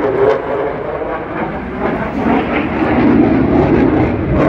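Airplane engine noise from an aircraft flying overhead, a continuous loud rumble that swells twice.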